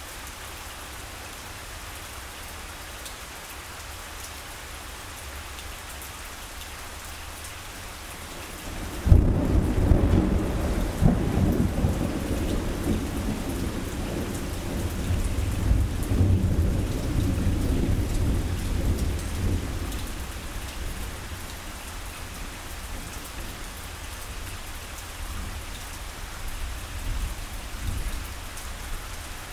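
Steady rain falling, with a sudden thunderclap about nine seconds in that rumbles on, swells again, and fades back into the rain after about ten seconds; faint further rumbles come near the end.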